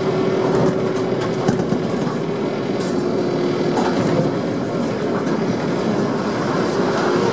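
Tram running on its rails, heard from inside near the front: a steady hum under the running noise, with scattered clicks and knocks of the wheels over the track.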